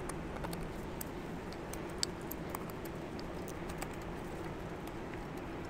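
Faint scattered small clicks and ticks of a piston's oil ring and expander spring being worked into the ring groove by hand, one click a little sharper about two seconds in, over a steady background hum.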